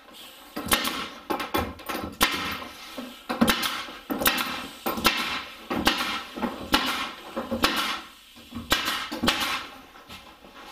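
A pneumatic staple gun fired over and over into a pine tongue-and-groove panel: sharp shots about two a second, each with a short puff of air, stopping shortly before the end. The last shots fire empty as the magazine runs out of staples and the gun just blows air.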